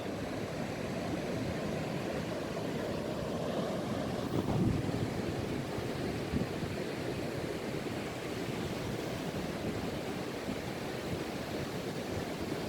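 Ocean surf washing onto a beach, a steady rushing wash that swells briefly about four and a half seconds in.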